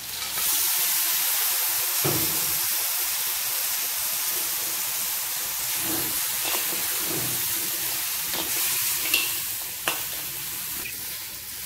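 Whole crabs sizzling in hot oil and spice paste in a wok. The sizzle jumps up about half a second in as the crabs go in, and holds steady while a spatula stirs them, with a few sharp clicks of the spatula against the wok.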